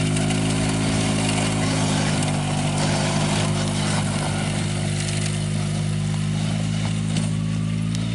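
ATV engine running at a steady speed with an even, unchanging hum.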